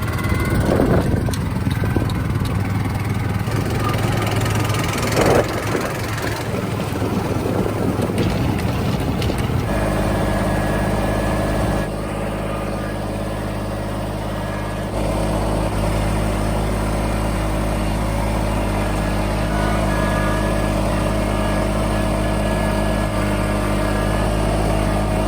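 A motor vehicle's engine running while it is driven, rough and uneven at first, then settling about ten seconds in to a steady, even engine note.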